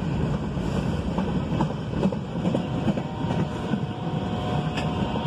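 Empty freight flat cars rolling past: a steady rumble of steel wheels on rail with scattered clicks and knocks. A thin steady whine comes in about halfway through.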